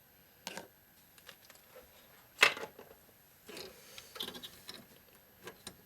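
IDE ribbon cable connectors being unplugged and handled inside a PC case: a series of sharp plastic clicks and knocks, the loudest about two and a half seconds in, with a quick cluster a second later.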